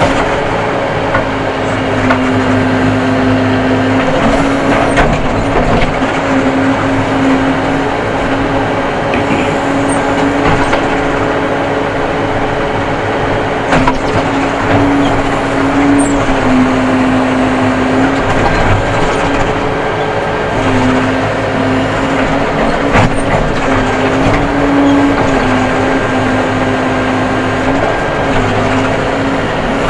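Case 580M backhoe loader's diesel engine running steadily at working speed, heard from inside the cab, its note rising and dipping slightly a few times.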